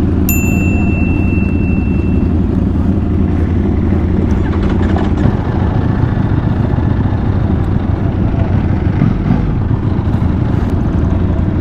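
Ducati Panigale V4 superbike engine idling steadily, a low, even rumble.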